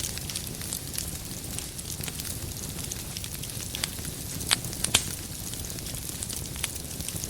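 Wood fire crackling in a fireplace: a steady low rush of flame with many small snaps, and two louder pops about halfway through.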